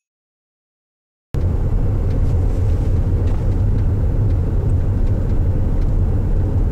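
Silence, then about a second in, outdoor street ambience starts suddenly: a loud, steady low rumble with faint ticks over it.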